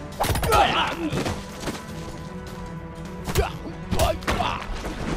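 Martial-arts fight sound effects: sudden hits and thuds near the start and again about three and four seconds in, with fighters' shouts and grunts, over a steady music score.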